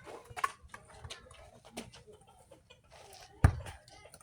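Chickens clucking, with a sharp, loud thump about three and a half seconds in.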